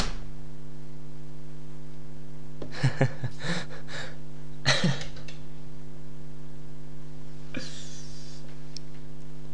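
Steady electrical mains hum made of several even tones. Short clusters of clicks come about three and five seconds in, and a brief breathy hiss near eight seconds.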